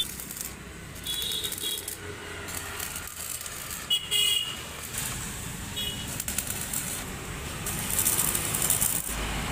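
Electric arc (stick) welder crackling and sizzling as it lays a bead on a motorcycle's steel side-stand bracket, the crackle growing busier near the end. Short high-pitched toots cut in about a second in, at about four seconds and again near six seconds.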